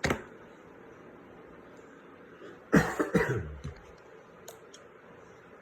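A person coughing, a short cluster of coughs about three seconds in, with a brief sharp sound at the very start and a couple of faint clicks afterwards.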